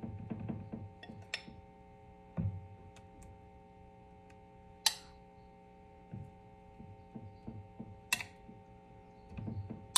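A small spoon scraping and tapping while scooping a soft mashed-raspberry mixture from a glass bowl onto a baking sheet: scattered soft knocks and three sharp clinks, over a steady low electrical hum.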